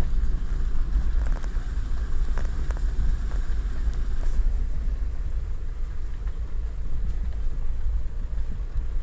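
Nissan Patrol GU's ZD30 3.0-litre four-cylinder turbodiesel and drivetrain running as the vehicle drives slowly on a dirt track, heard from inside the cabin as a steady low rumble. A few light clicks and rattles come in the first half.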